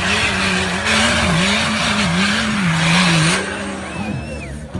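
Off-road vehicle engine revving up and down about twice a second, over a loud hiss of spinning tyres and spray. The hiss cuts off about three and a half seconds in, leaving the engine quieter.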